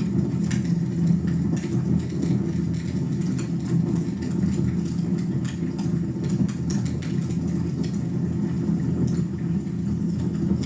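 Wood fire burning in a fireplace: a steady low rumble of flames with faint scattered crackles.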